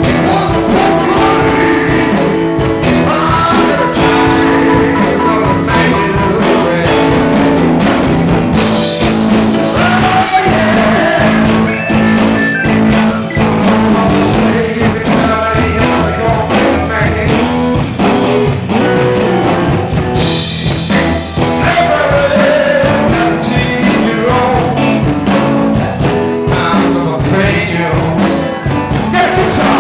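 Live rock band playing: electric guitar, electric bass and drums, with gliding guitar lines over a steady low end.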